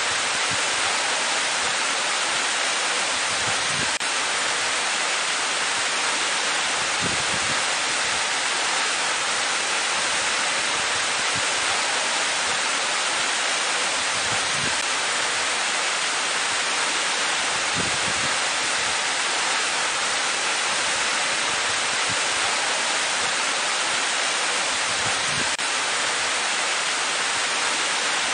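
Waterfall plunging into a pool: a steady, even rush of falling water, bright and hissy rather than deep.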